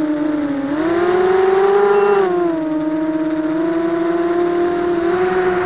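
ZMR250 racing quadcopter's brushless motors and propellers whining, picked up close by the camera on its frame. The pitch dips, climbs about a second in as the throttle goes up, holds, then drops back about two and a half seconds in and stays steady.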